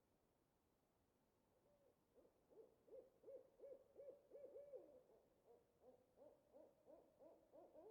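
Distant owl hooting: a long, quick series of short hoots, about three a second, starting about two seconds in.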